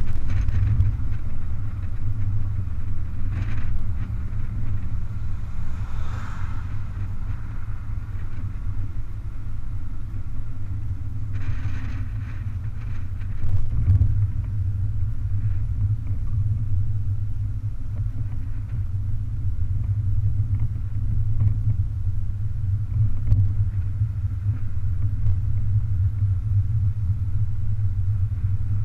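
BMW 420 convertible driving with its roof down: a steady, loud low rumble of wind and road noise, with a few brief swells of higher hiss.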